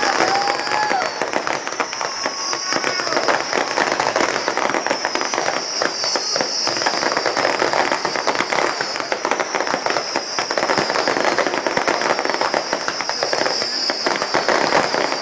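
Fireworks going off in a dense, continuous crackle of many small rapid pops and reports, with no pause.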